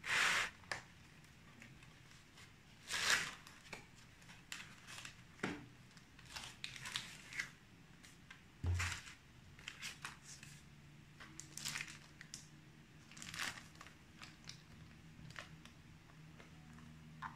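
Foam packing end caps and a plastic-wrapped laptop being handled: irregular rustles and scrapes as the foam is pulled away, with a dull thump about nine seconds in as something is set down on the table.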